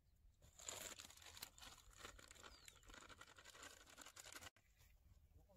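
Crinkling and rustling of a plastic bait packet as it is handled, opened and poured from, a dense crackle of small clicks that stops abruptly about four and a half seconds in.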